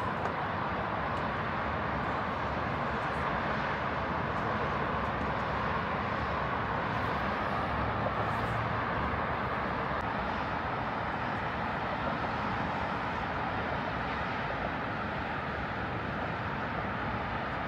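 Steady city street noise: a continuous, even rush like passing traffic, with no distinct events.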